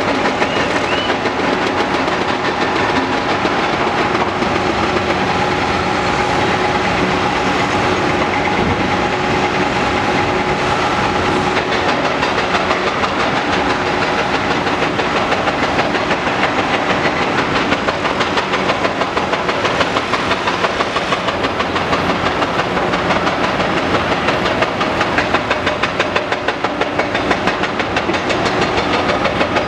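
Caterpillar 330D L excavator's C9 diesel engine running under load as it digs and swings, a steady, loud mechanical din with a fast rhythmic chatter and a few steady whining tones over it.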